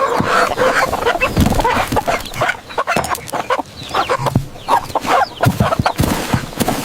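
Domestic hens clucking, many short calls overlapping in quick succession, with a few low thumps among them.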